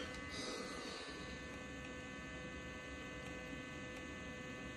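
Steady low electrical hum with several faint steady tones, even throughout.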